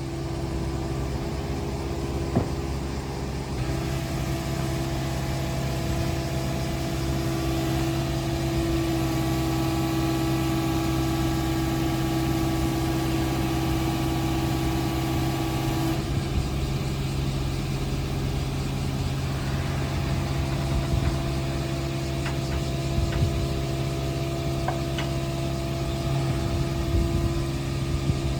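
Komatsu PC45MR-5 mini excavator's diesel engine running steadily, with a higher steady whine joining in about four seconds in, dropping away around sixteen seconds and returning a few seconds later as the machine is worked. A few light clicks near the end.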